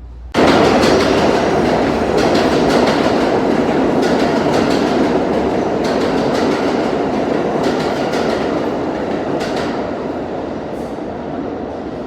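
New York City subway train running on the rails: a dense rumble and rattle with scattered clicks of the wheels over rail joints. It comes in suddenly about half a second in, then slowly fades.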